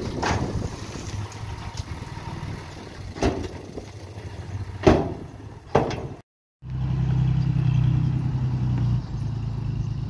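Diesel engine of heavy earthmoving machinery running steadily, with several sharp metallic clanks over it. The sound breaks off to silence for a moment a little past six seconds, then the engine comes back louder and steadier and eases off near the end.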